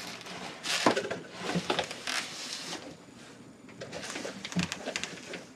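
A large plastic bag wrapped around a guitar rustling and crinkling as it is lifted out of a cardboard shipping box, with the box's cardboard scraping and bumping.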